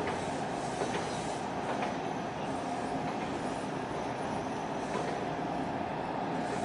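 Steady mechanical rumble of a large container ship under way, with a faint steady hum and a few light clicks.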